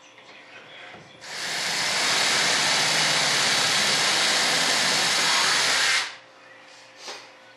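Handheld power tool running steadily against the edge of the model's bomb-bay door opening, a loud even hiss that starts about a second in, builds briefly, and cuts off abruptly after about five seconds.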